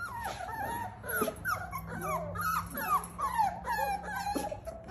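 A pen of young puppies whining together: many short, high whines, often falling in pitch and overlapping, over a steady low hum.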